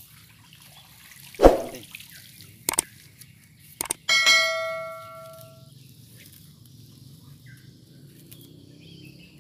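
A bamboo pole splashes and knocks in shallow pond water: one loud splash about a second and a half in, then smaller knocks about a second and two seconds later. Around four seconds in, a subscribe-button animation gives a click and a bell-like ding that rings and fades over about a second and a half.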